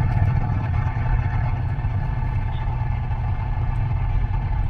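Steady low rumble of a running vehicle engine, unchanging throughout.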